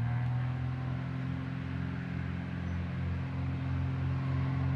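Cessna 182P Skylane's six-cylinder piston engine and propeller at full takeoff power, a steady drone on one pitch that grows slightly louder as the plane accelerates down the runway.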